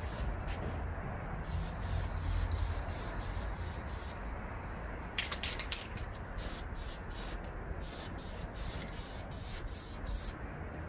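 Dupli-Color aerosol spray paint can hissing in many short bursts, about two a second, as a light coat of paint is sprayed onto a car mirror cover. A steady low rumble runs underneath.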